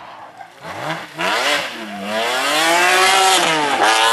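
Rally car engine revving hard as the car comes along the stage, getting loud a little over a second in, its pitch climbing, dipping and climbing again.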